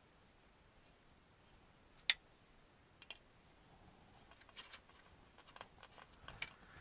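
Small clicks and taps of a screwdriver and screws being worked into a model car's chassis plates: two sharp clicks about a second apart, then a run of lighter, irregular ticks near the end.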